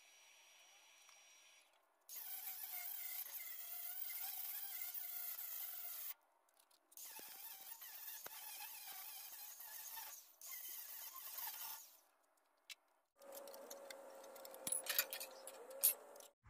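Cordless angle grinder grinding welded sheet steel, with a high buzzing whine. It runs in separate bursts with short gaps between them; near the end a lower, steadier run has a few sharp clicks.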